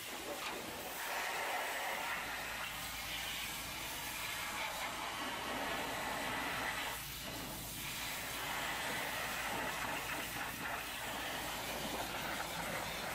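High-pressure washer jet blasting a truck's tyres, wheels and undercarriage: a steady hiss of spray with water spattering off rubber and steel, briefly easing about seven seconds in.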